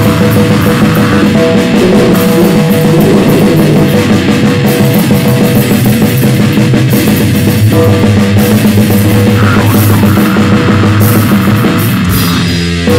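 Noisecore band recording: a heavily distorted guitar and a drum kit play loudly in a dense, noisy mass of sound. There is a short break just before the end.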